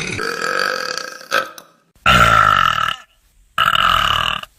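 Loud human burps: a long burp trailing off about a second in, then two more, each about a second long, with short silent gaps between them.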